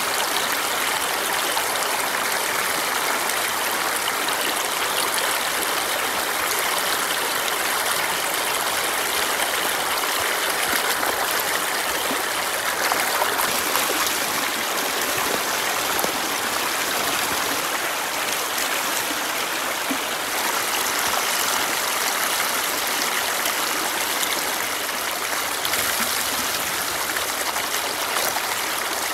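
Shallow river water pouring off a tarpaulin slide and splashing into a plastic crate, a steady, loud rush.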